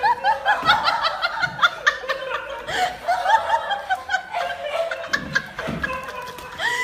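Rapid high-pitched laughter: many quick rising-and-falling 'ha' sounds, several a second.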